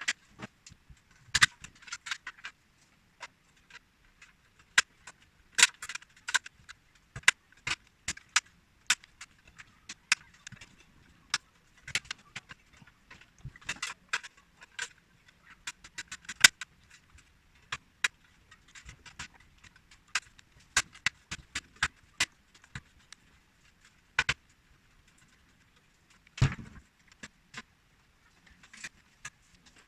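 Irregular clicks, taps and light rattles of computer hardware being handled and fitted by hand, with one heavier knock near the end.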